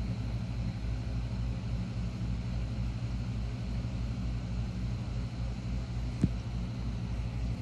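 Steady low rumble of road and engine noise inside a moving car, with one sharp click about six seconds in.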